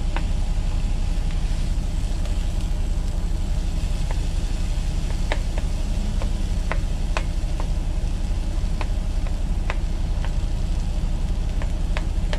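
Freightliner Coronado semi truck's diesel engine idling with a steady low rumble, while a spatula clicks and scrapes against a pan as stir-fry vegetables are stirred.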